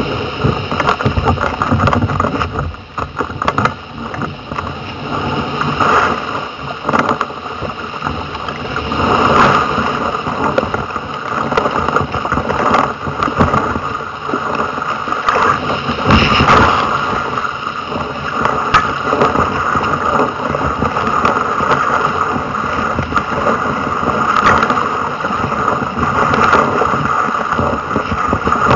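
Wind buffeting the microphone over water rushing and splashing around a double surfski as it is paddled out through breaking surf, with irregular splashes from paddle strokes and waves.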